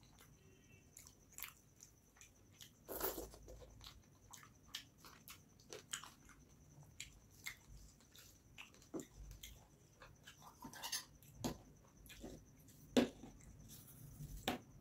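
Close-miked eating sounds: fingers squishing and mixing rice with fish curry on a steel plate, with irregular wet clicks and chewing.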